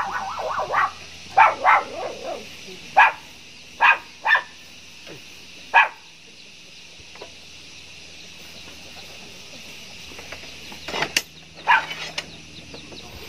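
A dog barking in short sharp bursts, several in quick succession over the first six seconds and again a few times near the end. Under it runs a steady high-pitched hiss of insects.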